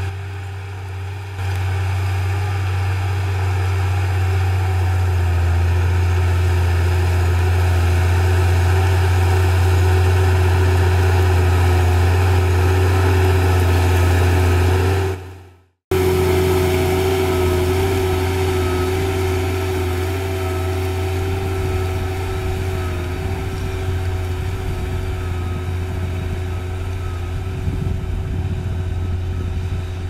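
New Holland T6.130 tractor's diesel engine running steadily under load while pulling a Baldan 24-disc offset harrow, a deep hum with a steady whine above it. The sound cuts out for about half a second midway, then resumes.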